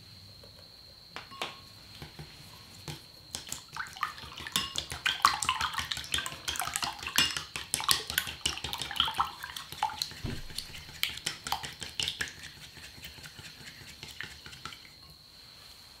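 Wooden chopsticks beating three raw eggs in a glass bowl: rapid clicking of the chopsticks against the glass with wet sloshing of the egg. It picks up a few seconds in, is busiest in the middle and tapers off near the end.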